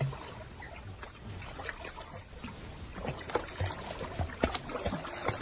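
Pool water splashing and lapping as puppies paddle, with many short irregular splashes that come more often in the second half.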